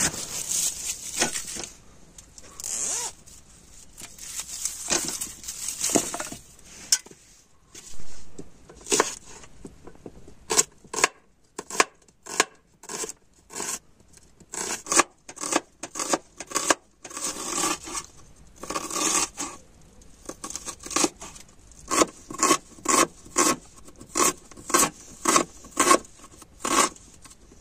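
Rustling and handling of a backpack and its contents, then a chef's knife slicing and chopping a red onion on a plastic cutting board: a long run of short, sharp knocks of the blade on the board, speeding up to about two a second near the end.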